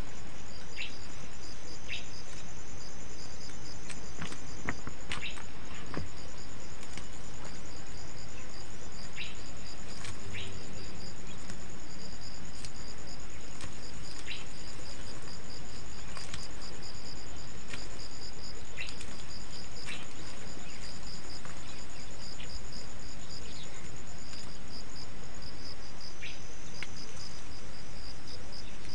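Insects chirping in steady, evenly pulsed high trills, with scattered light clicks and rustles from onion leaves being handled.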